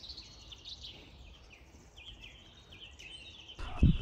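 Birds chirping and singing, with quick repeated high notes. Near the end a sudden loud low thump and rustle cut in.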